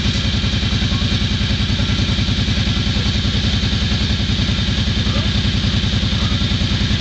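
ATV engine idling steadily, an even rapid pulse with no change in speed.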